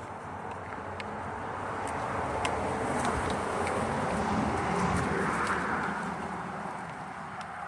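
A car passing by: its noise swells, is loudest about five seconds in, then fades away.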